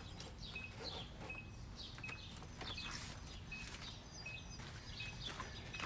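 Faint bird chirping: a short high note repeated about every three-quarters of a second, over quiet outdoor background noise.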